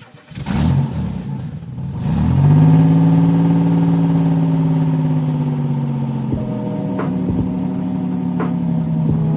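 Car engine starting and revving up about two seconds in, then running steadily with its pitch sagging slowly.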